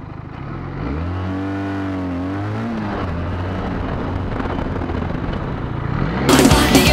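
Motorcycle engine pulling away: its pitch rises, drops at a gear change, then runs steadily under way. Loud rock music cuts in near the end.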